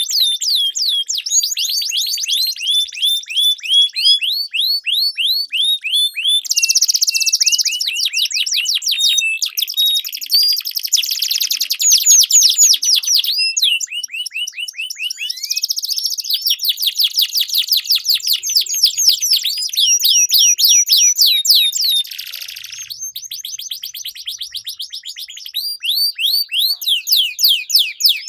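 Domestic canaries singing, long rolling song of rapid repeated sweeping notes and fast trills that change phrase every few seconds, high-pitched and continuous.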